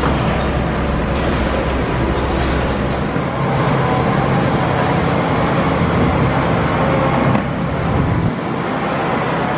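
Steady, loud vehicle and engine rumble. The deepest part of the rumble thins out about three seconds in and fades further near the end.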